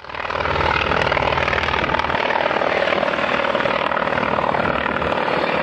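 The twin Pratt & Whitney R-1830 Twin Wasp radial engines of a Consolidated PBY-5A Catalina flying boat running steadily in flight, fading in at the start.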